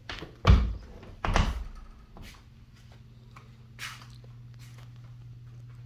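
Two dull thumps about a second apart, then a few faint ticks, over a steady low hum.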